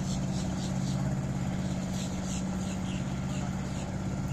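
283 Chevy small-block V8 with Crusader marine conversion idling steadily, a low even hum. Short high falling chirps come in small clusters over it near the start and again about two seconds in.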